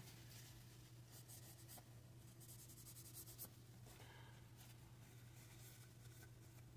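Near silence, with faint scratchy rustling and rubbing of hands and a cloth on a Glock pistol barrel, wiping off excess oil, over a low steady hum.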